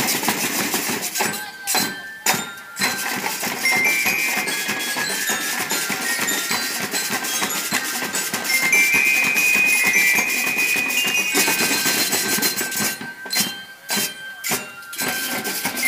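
Marching band drumline playing rapid snare drum patterns, with short high, bell-like metallic notes ringing over the drumming. The band cuts out in brief, sharp stops about two seconds in and again a few times near the end.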